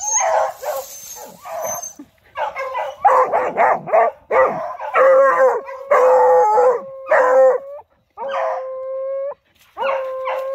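American foxhounds baying: a stretch of rapid, overlapping barks and bays, then long, steady, drawn-out howls held on one pitch near the end.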